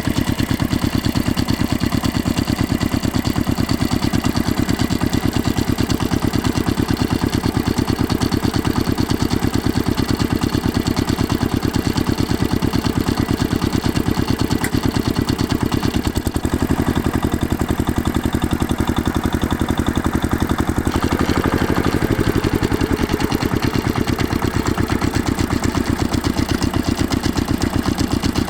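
Tractor engine idling steadily with a fast, even beat. About three-quarters of the way through, the engine note lifts briefly and settles back.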